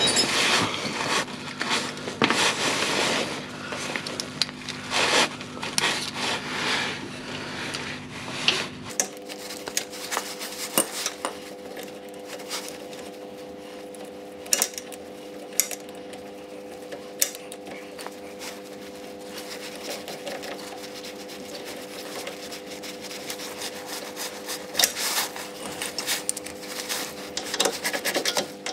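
Socket ratchet clicking in short runs with pauses as a Jubilee hose clip is tightened on a radiator hose, with tool handling and rubbing noises, over a steady hum that changes abruptly about nine seconds in.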